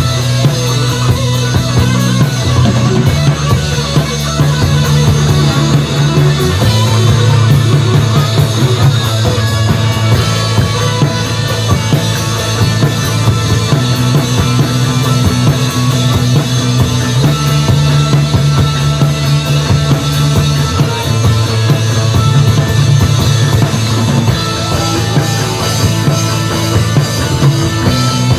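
Live rock band playing an instrumental passage: electric guitar, electric bass and drum kit, with the bass holding long low notes that change every few seconds under steady drumming.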